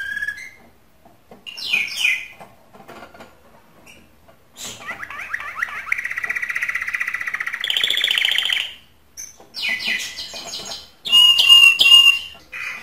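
Domestic canary singing in separate phrases with short pauses between: a long rapid trill in the middle, then quick falling sweeps, and near the end clear whistled notes, the loudest part. Courtship song of the kind used to stir hen canaries to breed.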